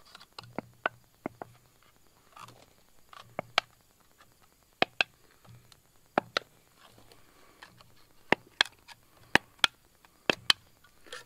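Pump oil can being squeezed to squirt cutting oil onto a thread-cutting tap, its pump clicking sharply about fifteen times, mostly in quick pairs.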